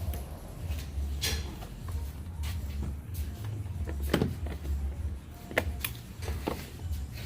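Scattered sharp clicks and knocks of car-door parts being handled and fitted back into place, the loudest about four and five and a half seconds in, over a steady low hum.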